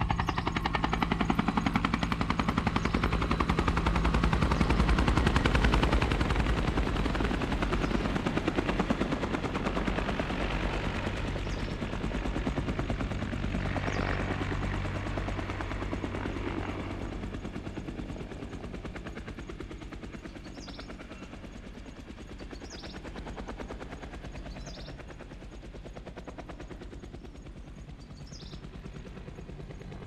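Helicopter passing, a fast rotor chop over a steady low engine drone. It is loudest about five seconds in, then fades slowly as it moves away. A few short high chirps come in the second half.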